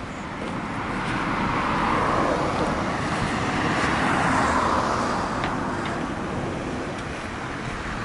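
Cars passing close by on the road, the tyre and engine noise swelling and fading twice, loudest about two seconds in and again about four and a half seconds in.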